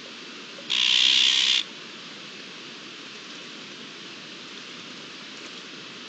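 One harsh, rasping call from an azure-winged magpie, lasting about a second, near the start, over a steady outdoor hiss.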